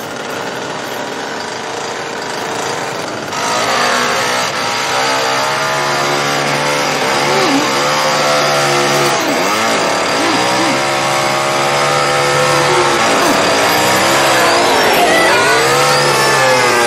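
Gasoline chainsaw running at high revs, getting louder about three seconds in, its pitch dropping and climbing back several times.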